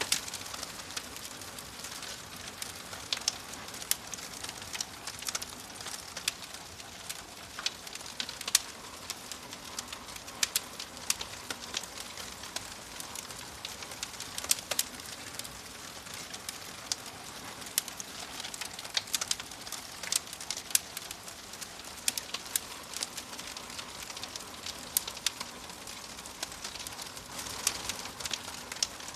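Fire crackling steadily: a constant soft hiss with frequent irregular sharp pops and snaps.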